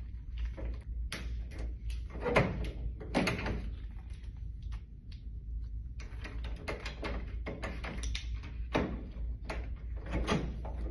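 Metal clicks, knocks and rattles of a replacement lock being fitted to a vending machine door, with louder knocks about two and three seconds in and again near the end.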